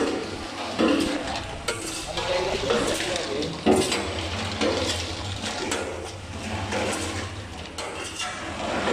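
Rotating stainless steel drum seasoning machine tumbling fried pork rinds, the rinds clattering and scraping irregularly against the steel drum over a steady low motor hum.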